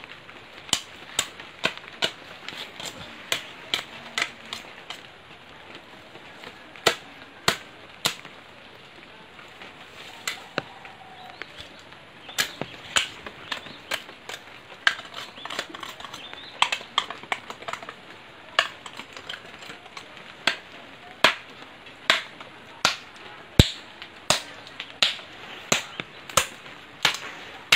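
A machete chops into wood branches in a long run of sharp strikes at an uneven pace, roughly one or two a second, with a few short pauses.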